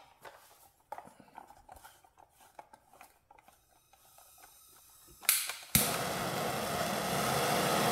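Gloved handling clicks and rattles of a propane torch and cylinder. About five seconds in comes a burst of gas and a sharp pop as the Bernzomatic Quickfire trigger-start torch lights, then the steady hiss of the propane flame.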